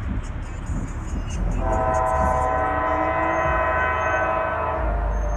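Locomotive air horn, on the lead GE Dash 9-40CW of an approaching freight train, sounding one long, steady chord for about three seconds, starting about a second and a half in.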